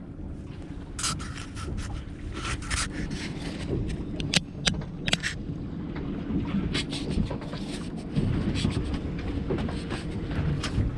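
A fishing boat's engine running with a steady low rumble, with scattered scrapes and knocks of gear being handled on deck.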